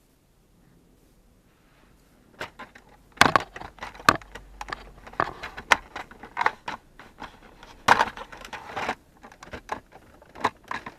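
Irregular clicks, knocks and scrapes of hard objects being handled, starting about two seconds in after a quiet start.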